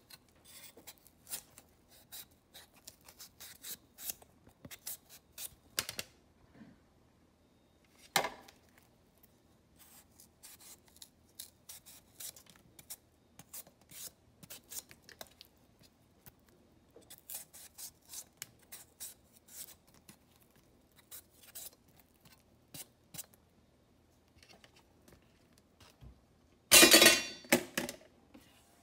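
Kitchen knife cutting and peeling a mango by hand: a run of small cutting clicks and scrapes, with a single thump about a third of the way in and a louder rasping noise lasting about a second near the end.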